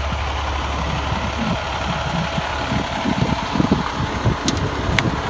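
Steady rumble with irregular low thumps, then two sharp clicks near the end as a hand works the latch of the fire engine's rear crew-cab door handle.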